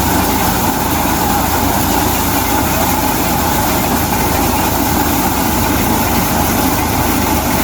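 Tractor-driven maize sheller running steadily at full speed, the engine's low hum under a constant mechanical rattle and rush.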